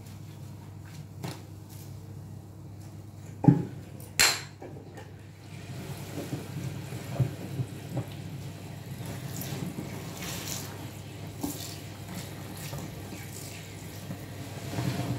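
Hands in a sink of soapy water and thick suds: a sharp knock about three and a half seconds in and a splash just after, then continuous sloshing and squishing of water and foam as the hands swish through the suds.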